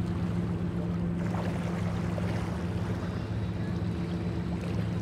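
Ferry engine running with a steady low drone.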